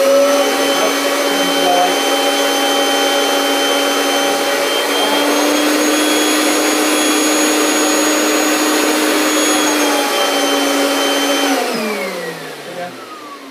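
Vacuum cleaner running steadily with its hose drawing a girl's hair up into a ponytail: a motor whine over the rush of suction. It shifts slightly in pitch about five seconds in, then is switched off about eleven and a half seconds in, the whine falling as the motor spins down.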